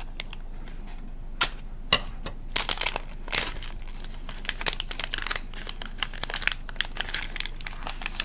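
A shiny foil blind bag is handled and torn open by hand, its wrapper crinkling and crackling. Two sharp snaps come about a second and a half in, then dense, irregular crinkling from about two and a half seconds on.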